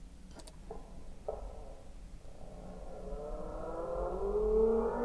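Grackle call slowed to about a seventh of its speed in Audacity, dropping pitch and tempo together. After a couple of mouse clicks, a low, drawn-out tone with several overtones starts about a second in and slowly rises in pitch while getting louder.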